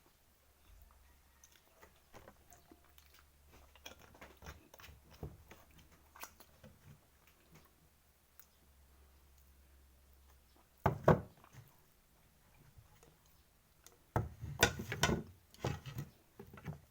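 A person eating: chewing with small wet clicks. There is a sharp knock about eleven seconds in and a burst of knocks and clatter near the end, like utensils or dishes being handled.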